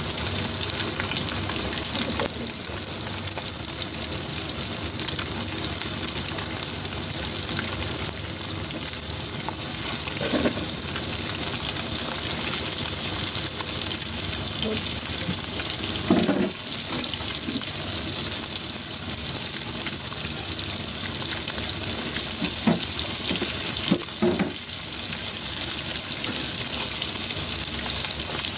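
Black sea bream bones and trimmings frying in hot oil in a frying pan: a steady, high sizzle of bubbling oil.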